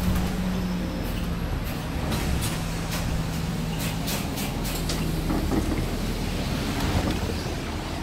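City bus running with a steady low engine rumble and hum. A run of short clacks and knocks between about two and five seconds in, as the passenger walks to the door and steps down off the bus.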